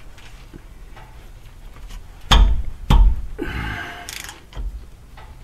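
Ratchet and extension loosening a Subaru Impreza's rear differential fill plug. Faint ticking gives way to two sharp knocks about half a second apart a little past two seconds in, then about a second of rasping as the tool turns, and a smaller knock near the end.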